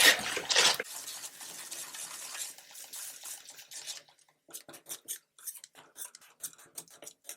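A utensil stirring and scraping onion paste around a pan of hot oil. There is a loud burst of scraping at first, then a softer hiss, then from about four seconds in a run of short separate scrapes and clicks against the pan.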